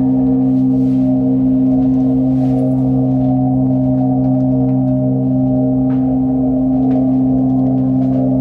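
Ambient drone music: several low tones held steadily, with a gently wavering higher layer, in a gong or singing-bowl-like timbre.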